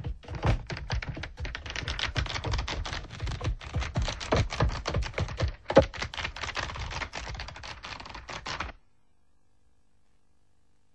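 Rapid clatter of tear-off calendar pages flipping past, a dense run of quick clicks that stops abruptly near the end.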